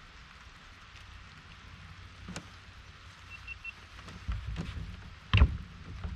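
Steady hiss of light rain with a low rumble underneath. A sharp click comes a little past two seconds, then three quick high beeps, and a loud thump about five and a half seconds in.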